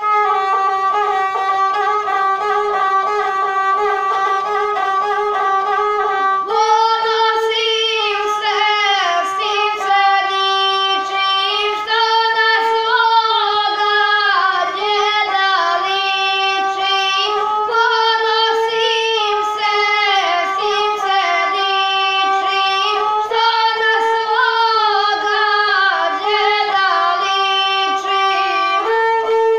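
A gusle, the single-string bowed Balkan fiddle, playing a drone-like melody, joined about six seconds in by a boy singing over it in the epic guslar style.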